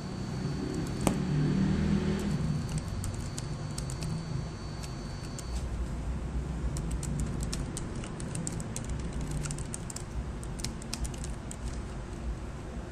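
Computer keyboard being typed on: irregular runs of quick key clicks, with one sharper click about a second in, over a steady low background rumble.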